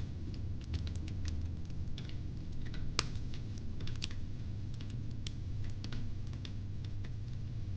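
Fire pit crackling: irregular sharp pops and snaps over a low steady rumble, with one louder pop about three seconds in.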